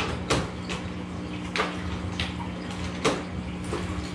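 Aquarium water splashing and sloshing, with light knocks, about five short bursts, as bagged fish are set in the tank to float for acclimation. A steady low hum runs underneath.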